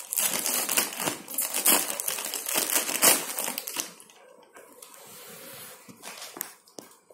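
Plastic salt packet crinkling as it is pulled open by hand, dense and continuous for about the first three and a half seconds, then fainter handling rustles.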